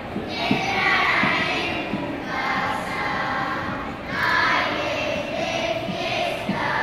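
Children's choir singing a villancico, a Spanish Christmas carol, in held, sustained sung phrases.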